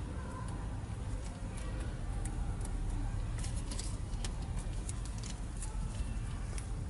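Scattered light clicks and ticks from hands working the fuel-pump harness wires as they are twisted together, over a steady low rumble.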